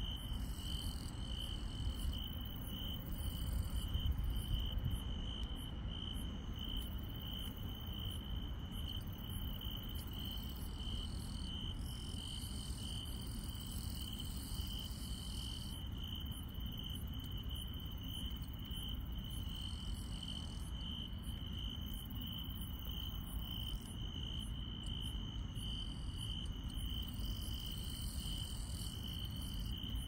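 Chorus of night grass insects: one sings a steady pulsing trill, while higher-pitched chirping comes and goes above it, over a low rumble.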